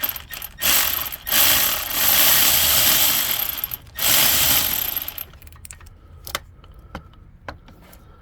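Milwaukee electric ratchet running in three bursts, the middle one longest at about two and a half seconds, as it runs a starter mounting bolt in. Afterwards come a few light clicks.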